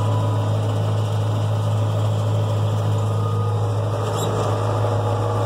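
John Deere 6400 tractor's diesel engine running at a steady speed.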